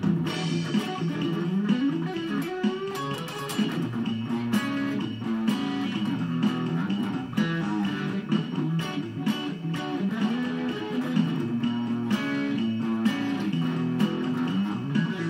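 Guitar music: a guitar playing a running line of quick plucked notes, with lower notes stepping up and down beneath them.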